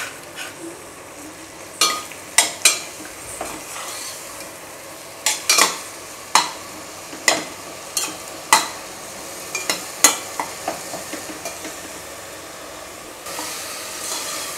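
Onion, tomato and mint frying in ghee in a stainless-steel pressure cooker, a steady sizzle, while a metal spoon stirs and repeatedly clinks against the pot. The sizzle grows louder near the end.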